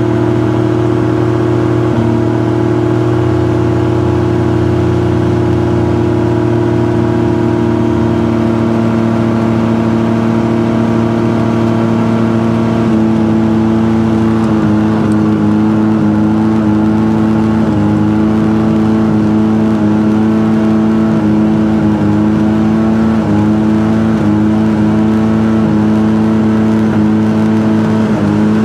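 Two-stroke engine of a self-launching motor glider running at climb power, its pylon-mounted propeller turning behind the cockpit. It is steady at first; about halfway through the pitch shifts and then wavers slightly again and again.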